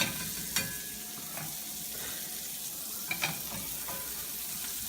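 Chopped onion sizzling steadily in a hot frying pan as it sautés toward caramelizing, with a few sharp clicks and scrapes of a utensil stirring it against the pan.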